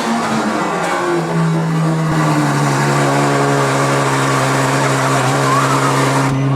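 Straight-piped Ferrari F12's V12 running at a loud, fast idle just after starting, its note shifting in the first second and then holding steady. The driver expects the idle to settle down in a moment.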